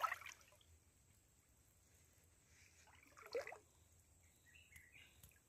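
Hands splashing and scooping in shallow stream water: two short splashes, one right at the start and one about three seconds in, with quiet between.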